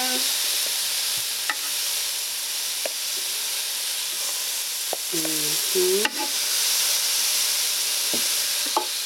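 Raw shrimp sizzling on the hot grill grate of a Ninja Foodi Grill as they are laid down with tongs: a steady high hiss, with a couple of sharp clicks of the tongs against the grate.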